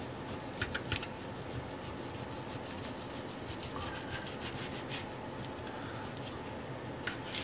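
Kitchen knife slicing raw pork belly on a plastic cutting board: a few light taps of the blade on the board, a cluster just under a second in and more around the middle and near the end, over a faint steady background hum.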